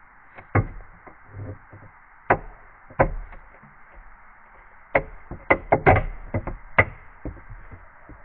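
A series of irregular sharp knocks and taps, a few spread out in the first half and a quicker cluster a little past the middle, over a steady low hiss.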